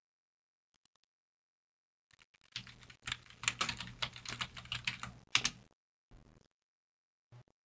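Typing on a computer keyboard: a quick run of keystrokes that starts about two and a half seconds in and lasts about three seconds, with a few stray key clicks before and after.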